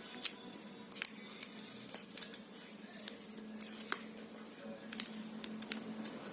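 Plastic packaging around a new smartphone being handled and opened by hand: irregular small clicks and crinkles, a few a second, over a faint steady hum.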